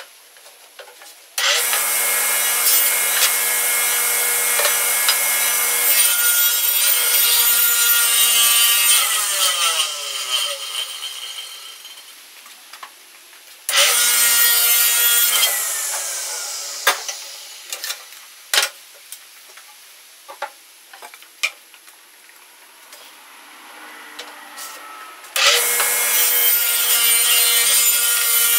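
Electric power saw cutting wood, started three times. Each run comes on suddenly with a steady high whine and cutting noise, and the first two wind down with falling pitch. Scattered clicks and knocks come in the quieter gaps between runs.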